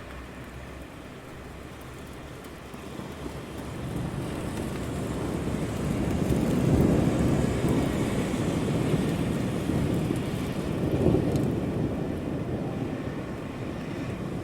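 Steady city rain with a deep rumble that swells up about three seconds in, peaks twice, and slowly eases off toward the end.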